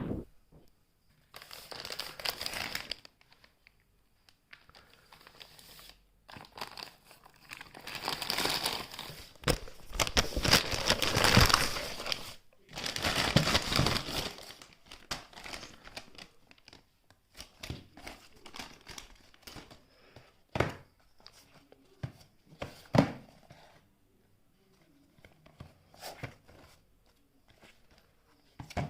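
Packaging being crinkled and torn open in irregular bursts, loudest in the middle, then quieter handling with a few sharp clicks and knocks near the end.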